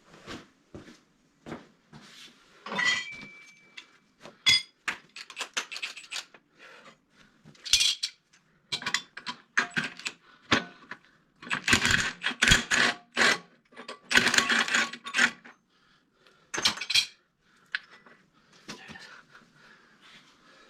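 Steel tools and parts clanking and clinking against each other in an irregular run of sharp metal knocks, some ringing briefly. They come thickest about halfway through.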